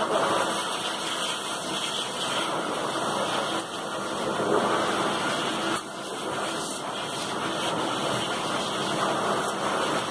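Steady rushing hiss of a pet dryer blowing air, dipping briefly twice.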